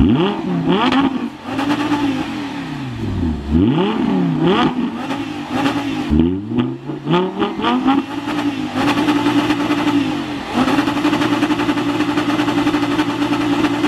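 Audi R8's 5.2-litre V10 revved while standing still: a series of quick rev blips, each rising and falling back, then held high and nearly steady for several seconds near the end, with a short dip in the middle of that stretch.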